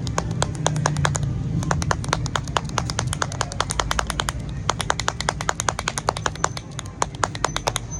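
Rapid, irregular runs of sharp clacks from a banana-leaf midrib toy, the 'cotopó' rattle, whose knife-cut and folded-back slats snap against the stalk as it is played.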